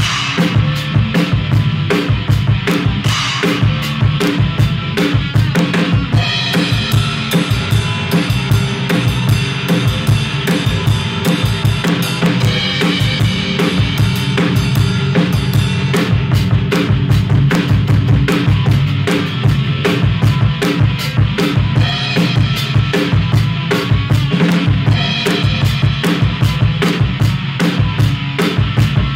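Acoustic drum kit played in a steady groove, with kick drum and snare hits driving the beat. The cymbals wash more heavily for two long stretches.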